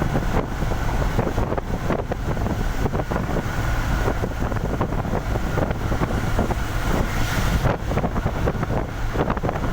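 Steady wind buffeting on the microphone over the low rumble of a vehicle moving on a wet road.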